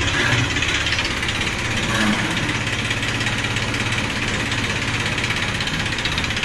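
Tractor diesel engine running steadily close by, a rapid, even clatter over a low hum.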